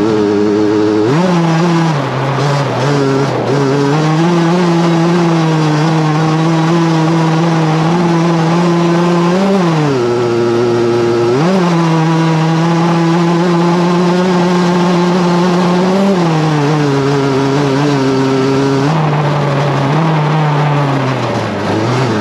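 Racing lawnmower's motorbike engine, heard on board, held at high revs, with the revs briefly dropping and climbing back several times, most sharply around ten and eleven seconds in.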